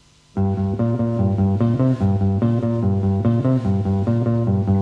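Instrumental rock from a bass-and-guitar rhythm section, starting abruptly about half a second in. A bass guitar plays a busy run of changing low notes.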